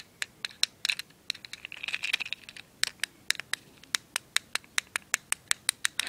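Plastic fidget cube's buttons clicked over and over with the thumb: a steady run of sharp clicks, about four or five a second, with a short scratchy rubbing stretch about two seconds in.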